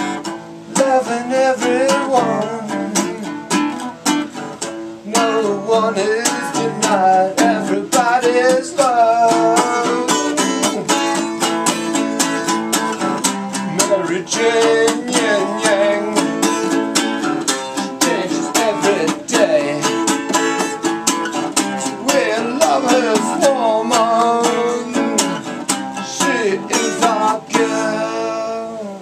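Live guitar song, the guitar strummed fast and hard with a voice bending and wailing over it. The music stops abruptly at the very end.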